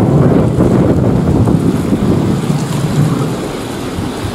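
Wind buffeting the microphone: a loud, steady, gusty low rumble that eases slightly near the end.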